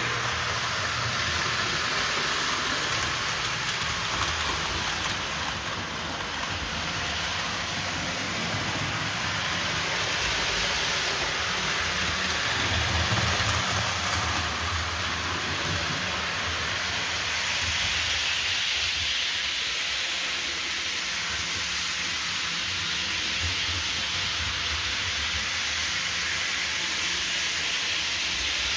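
Model trains running on a home layout: a steady hissing noise of small wheels on track and electric motors.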